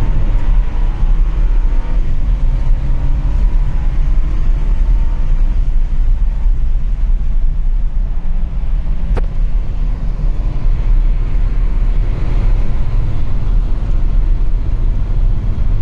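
Cabin sound of a BMW driven hard on a race track: the engine running under load over heavy road and wind noise, dominated by a low rumble. A single sharp click sounds about nine seconds in.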